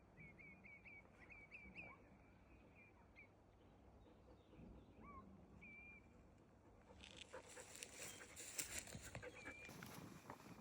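Faint, quick high chirps of a small songbird, a rapid run in the first three seconds and a few single notes later. From about seven seconds in, footsteps rustle and crunch on the ground alongside the chirps.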